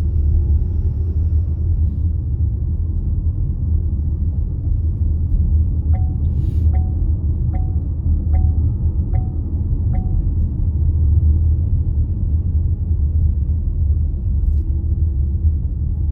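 Steady low rumble of road and engine noise inside a moving car's cabin. Midway through, a turn-signal indicator clicks six times at an even pace, then stops.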